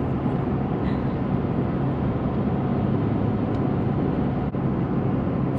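Steady low rumble of a running car, heard from inside the cabin.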